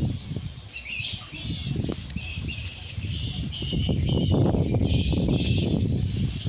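Birds calling in short, repeated bursts, about two or three a second, over a low rumble.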